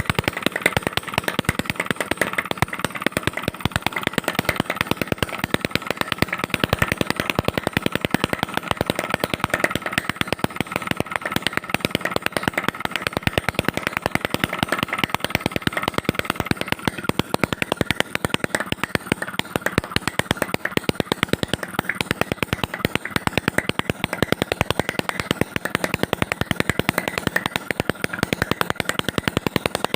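Homemade two-stroke engine built from a refrigerator compressor, running steadily with a rapid, even firing beat.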